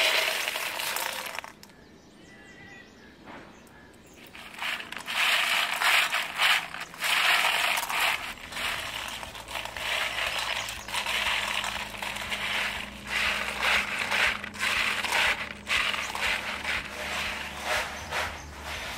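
Freshwater snails poured into a stainless steel bowl, their shells clattering against the metal. After a short lull, a dense rattling and clicking of shells goes on as hands stir and sort them in the bowl.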